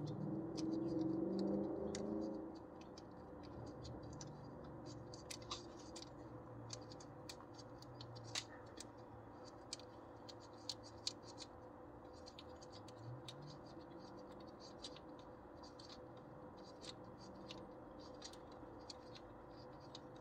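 Light, irregular clicks and scratches of hand tools and metal parts being handled while working on an engine, over a faint steady hum, after a brief low voice at the start.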